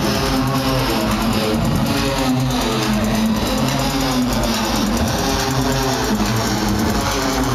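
Loud techno played over a festival sound system: a steady beat under a repeating melodic riff.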